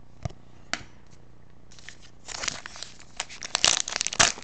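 A couple of light clicks from cards being handled, then from about two seconds in a dense, sharp crackling of a trading-card pack's foil wrapper being crinkled and torn open.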